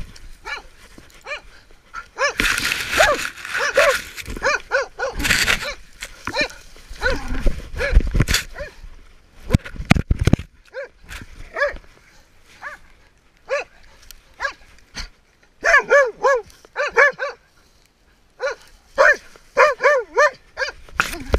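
Hunting dog barking close up, first in scattered single barks and then, in the last few seconds, in quick runs of short barks. Fur and brush rustle against the microphone, with a couple of sharp knocks about a third of the way in.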